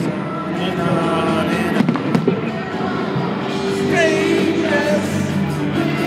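Fireworks going off over loud music: a few sharp bangs near the start and about two seconds in, with the music playing throughout.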